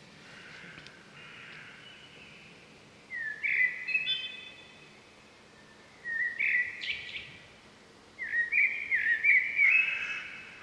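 Bird song: three bursts of quick chirping notes a couple of seconds apart, the last one the longest.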